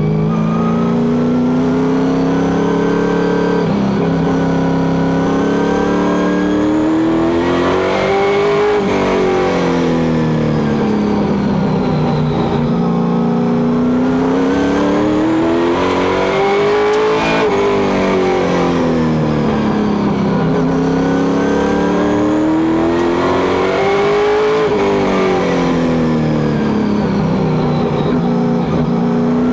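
Stock car engine heard close up from inside the cockpit at full race pace, its pitch climbing steadily along each straight and falling back as the driver lifts for the turns. It peaks three times, about every eight seconds, once per lap of the short oval.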